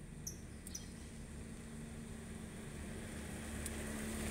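A steady low engine hum that grows gradually louder, with two short high chirps in the first second.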